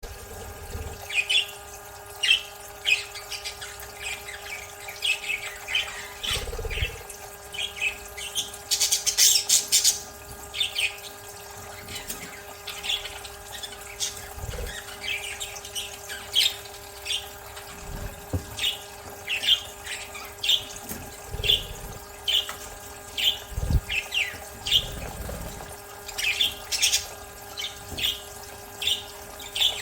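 Budgerigars chirping and squawking in quick, short calls one after another while bathing. There is a burst of splashing about nine seconds in and a steady hum underneath.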